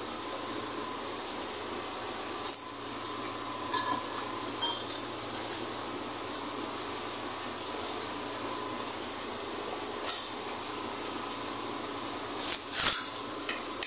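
Oil and masala sizzling steadily in a metal karahi, with metal tongs clinking against the pan several times as the fried stuffed eggplants are lifted out.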